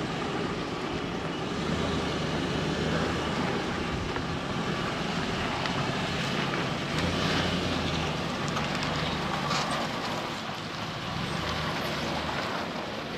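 2007 Lexus GX470's 4.7-litre V8 running at low revs as the SUV crawls past and climbs away over slickrock, its engine note swelling briefly about halfway through.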